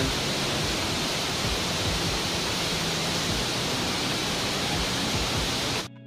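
Steady rush of falling water from a large waterfall, an even dense noise that cuts off suddenly near the end.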